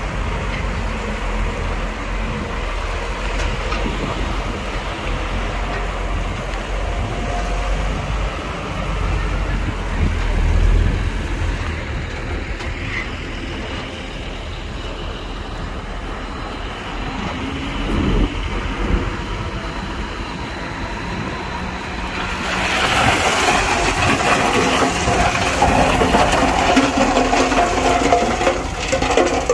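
Heavy diesel earthmoving machinery, a bulldozer and dump trucks, running with a steady low rumble. About 22 seconds in, a louder steady rush of loose rock sliding and scraping sets in.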